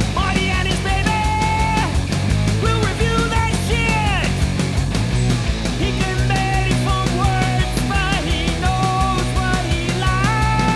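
Loud punk rock theme song playing, with a fast, steady drum beat under bending pitched lines.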